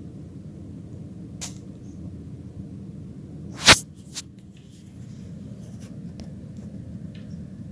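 Guinea pig sneezing: short sharp sneezes, the loudest just under four seconds in and a softer one about a second and a half in, over a steady low hum.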